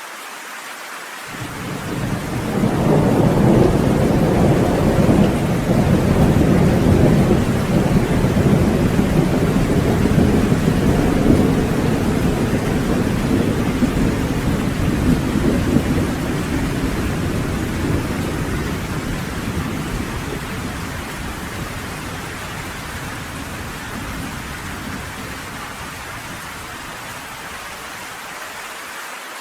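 Steady rain with a long roll of thunder that begins about a second in, rumbles at its loudest for the next dozen seconds or so, then slowly fades away under the rain.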